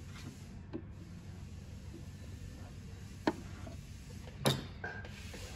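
Small handling clicks from tweezers and hands at a coverlock sewing machine, with one louder knock about four and a half seconds in, over a steady low hum.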